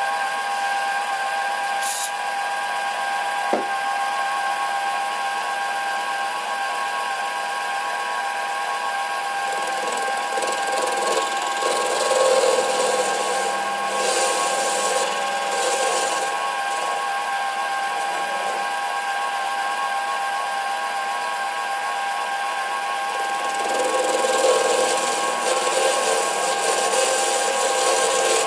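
Sieg SC3 mini lathe running with a steady motor whine while its tool turns a 60-degree taper on the end of a spinning mild steel bar. The rougher cutting noise swells twice, around the middle and again near the end, and there are two light ticks in the first few seconds.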